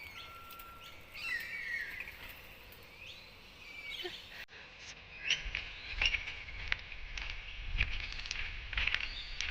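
Birds calling and chirping, with one short steady whistle-like note near the start. About halfway the sound cuts abruptly to a string of short sharp taps over a low rumble.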